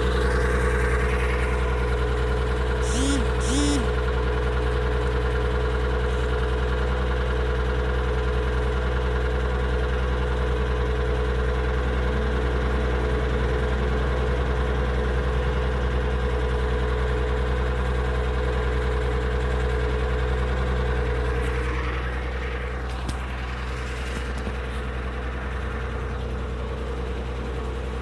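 1995 BMW 325i's 2.5-litre straight-six running steadily, with a steady tone over the engine note that the owner calls a very bad sound. Two short chirps come about three seconds in. About twenty-two seconds in, the tone fades and the engine gets a little quieter.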